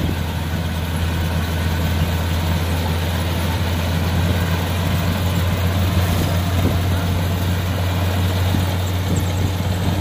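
Kubota R1-551 combine harvester's diesel engine running steadily while it cuts and threshes rice: a steady, loud low drone.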